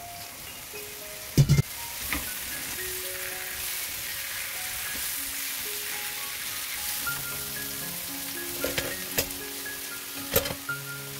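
Sliced mushrooms sizzling in hot oil in a nonstick frying pan as they are stirred with a spatula, with a few sharp knocks against the pan. The loudest knocks come a little over a second in, and a few more come near the end.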